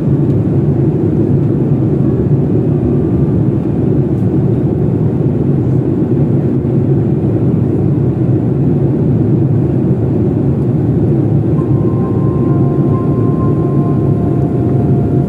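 Steady low rumble of jet airliner cabin noise in cruise: engine and airflow noise heard inside the cabin beside the wing-mounted turbofan.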